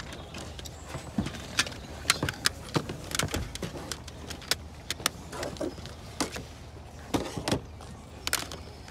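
Irregular sharp clicks, knocks and clinks of small hard items being handled and moved about, some ringing briefly, a dozen or more spread through the whole stretch.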